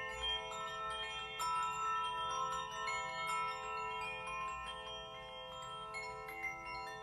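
Metal bells and chimes struck again and again, many clear tones ringing on and overlapping, with a new strike every half second or so.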